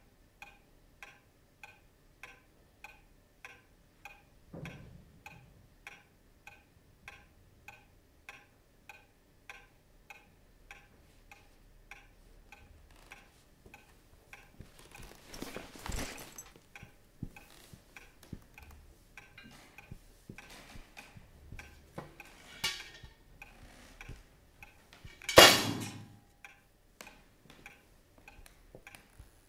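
Clock ticking steadily, about two ticks a second. A few irregular knocks come through, the loudest about 25 seconds in.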